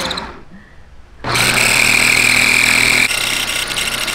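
Small electric food processor pulsed: the motor winds down and stops, then starts again a little over a second in and runs steadily, grinding a thick paste of squid, shrimp, onion and garlic. Near the end its sound changes and drops a little in level.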